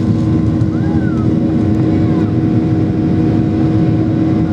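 Cabin noise inside a Boeing 737-800 standing on the ground: a steady low rumble with a constant hum, from the engines and aircraft systems running.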